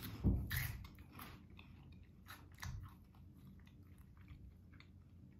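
Spicy cheese puff balls being bitten and chewed: a loud crunchy bite at the start, then a run of smaller crunches and crackles as the chewing goes on.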